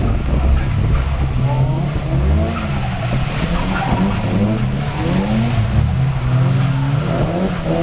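Engines of two drift cars revving, their pitch rising and falling again and again as they slide through a tandem drift, over a steady hiss of skidding tyres.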